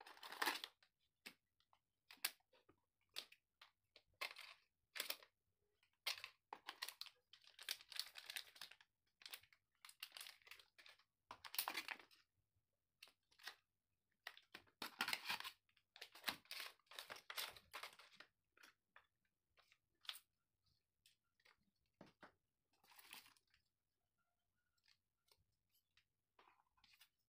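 Packaging handled by hand during an unboxing: faint, irregular bursts of rustling and crinkling, with scattered clicks and taps of items against the box tray.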